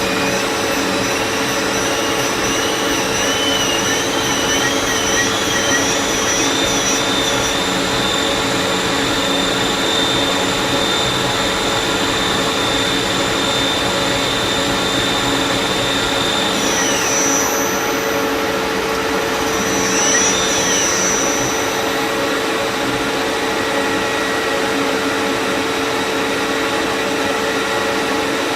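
A lathe running steadily, a motor hum under a high whine. The whine wavers and climbs over the first several seconds, holds, then drops away about two-thirds of the way through, with a brief rise-and-fall of the whine a few seconds later.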